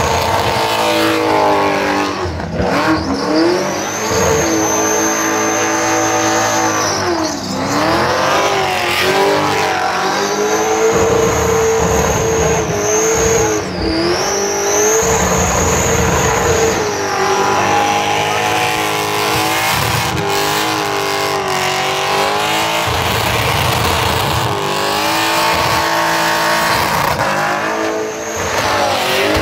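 Supercharged LS V8 in a Holden Commodore held at high revs during a burnout, its note dipping and climbing again several times as the throttle is worked, over the rush of spinning tyres.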